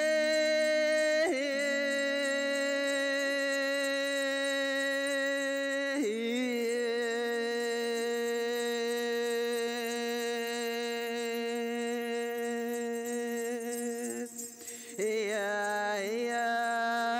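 Two women's voices singing an archaic Finnish forest song in long held notes, one low and one higher, sounding together like a drone. The notes shift in pitch about a second in and again around six seconds, and there is a brief break for breath near the end before they resume.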